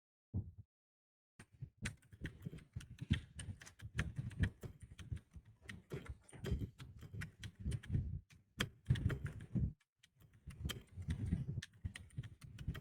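Typing on a computer keyboard: quick, uneven key clicks that start about a second and a half in and run on, with a brief pause near ten seconds in.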